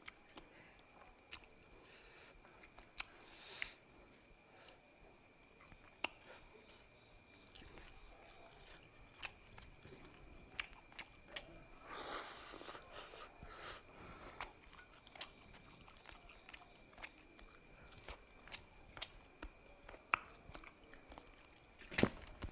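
Close-miked eating of whole fish: soft chewing with frequent sharp mouth clicks and smacks, and a busier, crunchier stretch about twelve seconds in. A faint steady high whine runs underneath.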